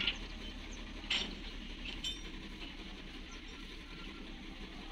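Heavy machinery diesel engines running steadily in the distance, with three short metal clinks in the first two seconds or so.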